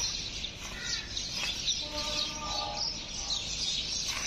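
Many small birds chirping together in a continuous busy chatter. About two seconds in, a steady, held tone sounds for about a second and a half.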